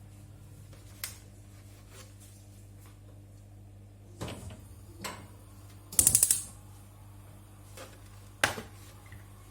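Scattered clicks and knocks of kitchen items being handled, with a quick rattle of about six sharp clicks about six seconds in, over a steady low hum.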